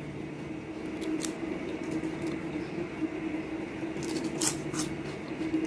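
Crispy fried chicken wing crunching, with a few sharp crackles about a second in and again around four to five seconds in, over a steady low hum.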